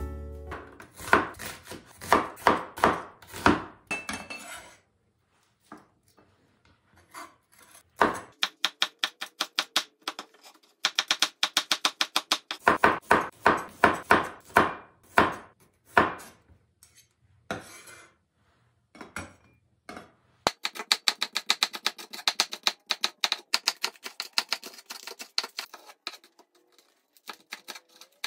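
Black cleaver-style kitchen knife chopping on a wooden cutting board: runs of sharp, quick knife strikes as garlic cloves are sliced thin, then faster, closer-spaced chopping of green onion from about twenty seconds in.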